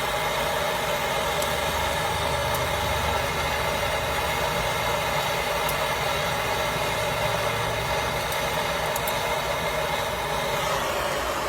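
Handheld charcoal lighter running steadily against the lump charcoal: an even, motor-like whir with a low hum, fading out near the end.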